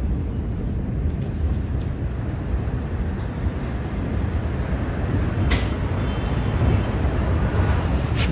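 Steady low rumbling noise, with a few faint clicks about five and a half and eight seconds in.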